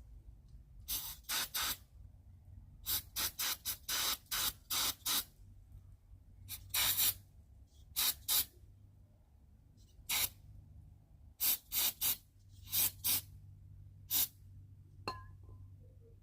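About twenty short hissing spray bursts, fired in quick clusters into an old lawnmower carburetor to flush and clear it.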